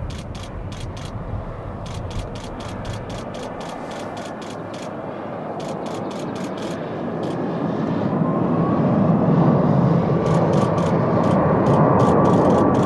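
Jet engine noise of an Airbus A380 building steadily louder as it passes low and climbs out, with a steady whine coming in about eight seconds in. Runs of rapid, sharp clicks, several a second, sound over it in groups.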